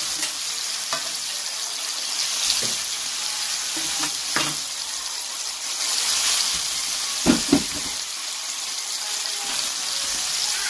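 Beef burger patties sizzling on a hot ridged grill pan, a steady high hiss. A few light knocks come through it, and two louder thumps in quick succession about seven seconds in.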